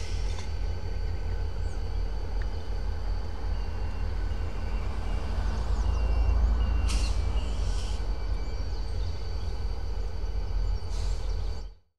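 Diesel locomotive running at a distance: a steady low rumble with faint steady tones above it, and a few short hisses of released air. The sound cuts off suddenly near the end.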